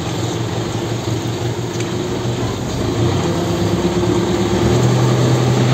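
ELEX81A backhoe loader's diesel engine running steadily, heard from the cab, under the steady hiss of a heavy downpour. The engine note grows stronger about four and a half seconds in.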